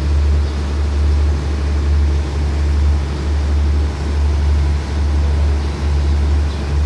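Diesel engines of a standing passenger train running at idle: a steady low drone.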